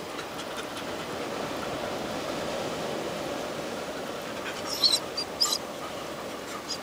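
Steady wash of surf and moving water at a rocky tidepool, with a few sharp high clicks about five seconds in.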